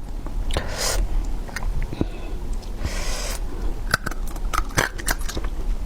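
Close-miked eating sounds: biting and chewing with scattered sharp crunchy clicks and a couple of brief hissy rustles.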